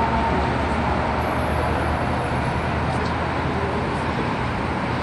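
A loudspeaker-amplified held note of the call to prayer breaks off right at the start. After it comes a steady outdoor wash of road-traffic noise, a low rumble with hiss over it.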